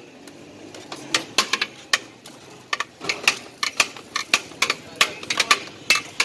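Metal serving spoons clacking and scraping against large steel biryani pots and plates: an irregular run of sharp metallic clicks, several a second.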